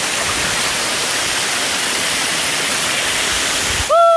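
Waterfall roar, a steady dense hiss close to the microphone. Near the end it cuts off abruptly and a held, steady tone takes over.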